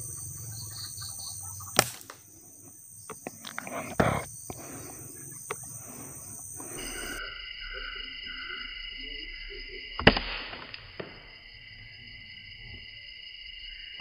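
Sharp crack of a scoped air rifle firing, about two seconds in, and the same shot heard again about ten seconds in as a replay. A smaller knock comes about four seconds in. Under the shots runs a steady outdoor background of insects with short bird chirps.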